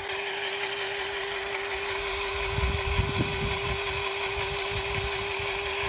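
Battery-powered grease gun running continuously with its trigger zip-tied, a steady motor whine, forcing grease into the cylinder of a seized John Deere 60 engine to push the stuck piston down.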